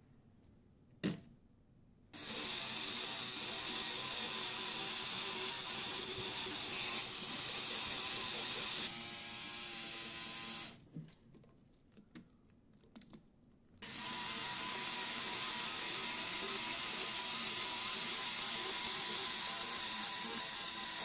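Lego Technic walking machine's electric motors and plastic gear train running with a steady whir and fine clatter as its legs step on wet glass. It starts about two seconds in, stops for about three seconds midway, then runs again.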